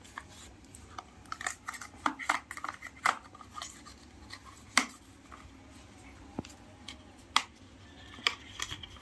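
Packaging of a braided micro USB cable being opened and handled: irregular sharp clicks and short crinkling rustles, with a few louder snaps.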